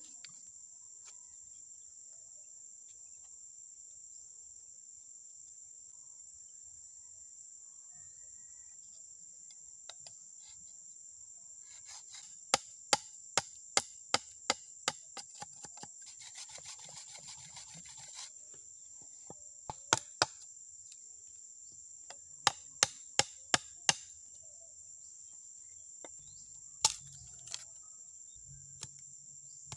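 Large knife blade chopping and notching a green bamboo tube: sharp knocks in runs of about two to three a second starting about twelve seconds in, with a short stretch of scraping in the middle. A steady high-pitched insect drone runs underneath.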